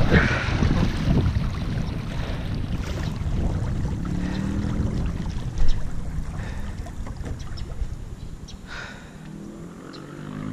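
Paddle strokes and water rushing past a Dolphin Capri 10 sit-on-top kayak at speed, with wind on the microphone. The rush fades through the second half as the kayak glides, with one sharp knock about halfway through.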